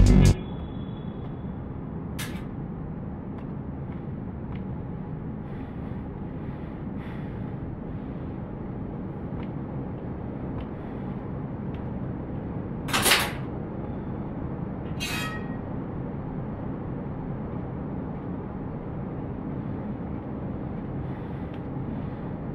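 Steady low ambient hum of a quiet room, with a few faint ticks. There is one short, sharp clink or scrape about 13 seconds in and a softer one about two seconds later.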